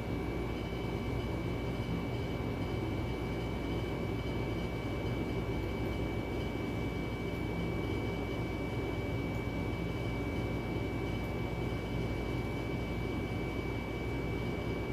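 Steady room noise with no breaks: a low rumble and a constant high-pitched whine.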